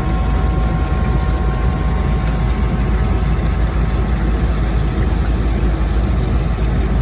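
Tractor engine running steadily while driving, loud and close, with a steady high whine over the engine noise.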